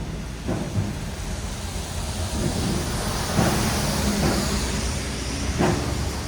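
Traffic on a wet city road: tyres hissing on the wet pavement over a steady engine rumble, with a few short knocks, swelling a little past the middle.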